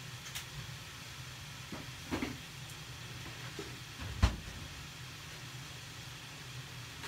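Steady low hum and hiss in a kitchen, with a few light ticks and a sharp knock about four seconds in.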